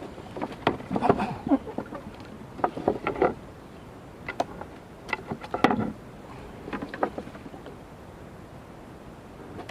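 Irregular bursts of water splashing and knocking, in several short clusters, over a steady background hiss.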